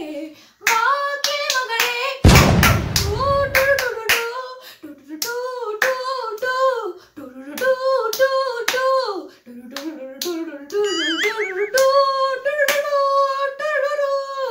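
A young woman singing a melodic song, unaccompanied, her held notes wavering with vibrato, with hand claps and clicks between phrases. A loud noisy burst about two seconds in lasts nearly two seconds.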